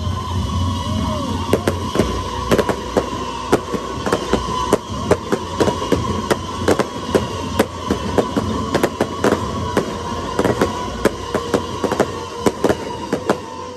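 Fireworks going off: aerial shells and crackling stars making a rapid, irregular string of sharp pops and bangs.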